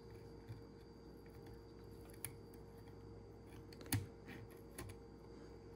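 Small, sharp metal clicks and taps of a little screwdriver working on the brushes and brush holder of a power window motor. There are four of them, the loudest about four seconds in, over a faint steady hum.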